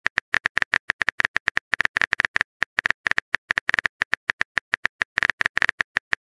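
Phone keyboard typing sound effect: a rapid, uneven run of short clicks, one per keystroke, as a text message is typed out letter by letter.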